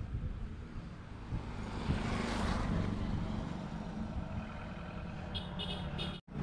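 A vehicle passing on the road, its noise swelling and fading about two seconds in, over a steady low rumble.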